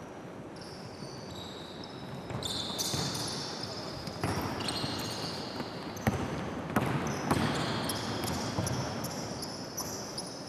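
Basketball players running a drill: sneakers squeaking repeatedly on the court floor, with a ball bouncing a few sharp times in the second half.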